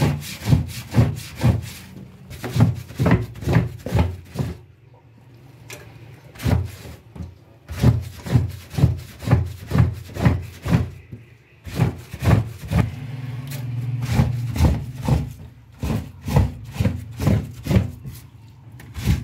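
Soapy, wet cotton roti cloths scrubbed hard by hand on a steel sink's ridged drainboard: rhythmic rubbing strokes, about two or three a second, pausing briefly twice. The cloths are being washed of grease and smell after soaking overnight.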